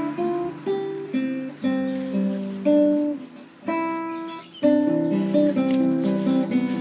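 Classical nylon-string guitar played by hand: a slow melody over chords, each plucked note ringing and fading before the next chord is struck.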